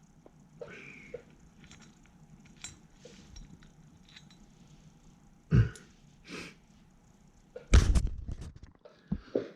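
Workshop handling sounds: a few short knocks and clatters of tools and engine parts being handled during a two-stroke exhaust valve teardown, the loudest cluster about eight seconds in, with quiet in between.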